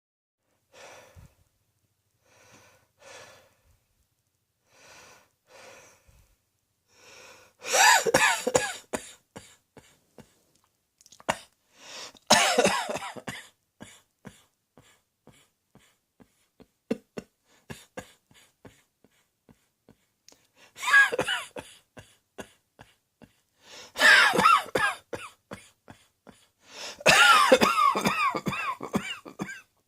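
A person coughing: a few soft coughs first, then loud fits of several coughs in quick succession beginning about eight seconds in, recurring four more times.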